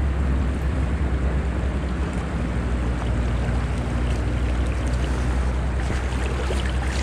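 Steady rushing of river current, with a heavy low rumble of wind on the microphone.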